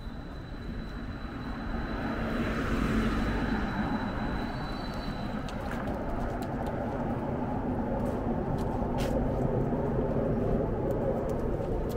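Steady city traffic noise, swelling about two seconds in as a vehicle passes and then holding, with a faint high steady whine over the first few seconds.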